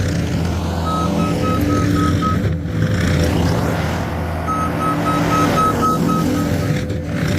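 New Holland C232 skid steer's diesel engine running steadily while its reverse alarm beeps rapidly in two runs, about a second in and again past the middle, as the machine backs up.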